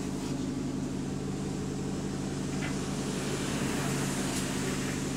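Bus ABL 9536's cooling fan running with a steady drone of several even hum tones, heard from inside the passenger saloon over a low rumble.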